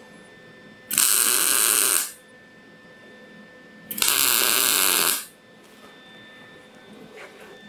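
MIG welder tacking steel brackets: two bursts of arc noise about a second long each, the first about a second in and the second about three seconds later.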